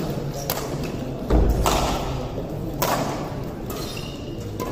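Badminton rally: racket strikes on the shuttlecock about once a second, echoing in the hall, with a heavy thud of a player's footfall just over a second in.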